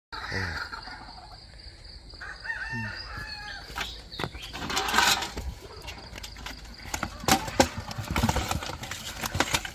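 A rooster crows over a thin, steady high-pitched background tone. From about four seconds in, there is a dense run of clicks, knocks and rustling.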